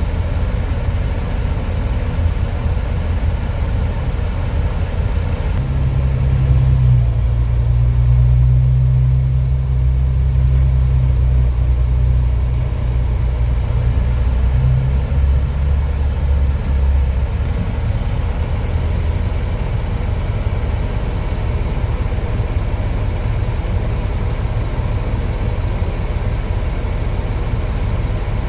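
Heavy diesel engines of an excavator and dump truck running. About six seconds in, a deeper, louder engine hum comes up and holds for about ten seconds before fading back to a steady run.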